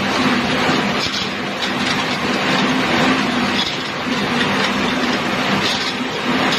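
Machinery running steadily: a loud clatter over a low hum that breaks off and resumes every second or so.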